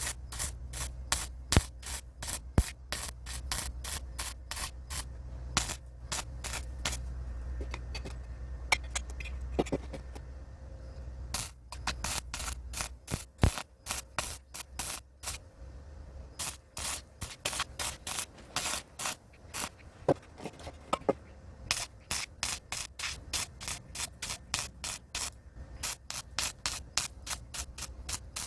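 Electric arc welding on a steel greenhouse pipe joint: the arc crackles and sputters in uneven runs, thinning out briefly a few times, with a steady low hum underneath during the first half.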